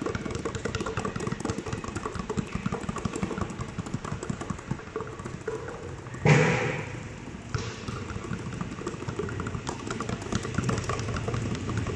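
Two basketballs finger-dribbled low and fast on a hard court floor, a quick patter of small bounces. About six seconds in there is a single louder thud.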